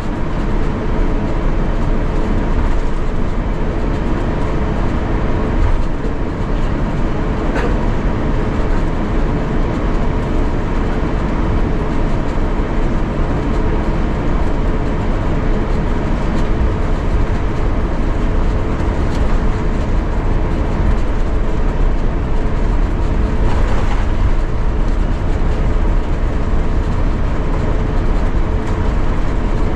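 Airbus A350-900 cabin noise on the ground before takeoff: a steady rumble with a steady hum from its Rolls-Royce Trent XWB engines at idle, heard from inside the cabin.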